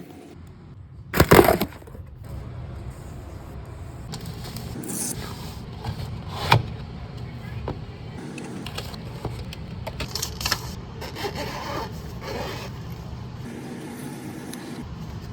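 Items being unboxed and handled: irregular scraping, rubbing and rustling with sharp clicks and knocks, the loudest a short noisy burst about a second in, over a steady low hum.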